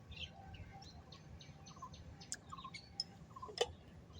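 Faint birds chirping in quick short calls, with a few sharp clicks, the loudest about three and a half seconds in.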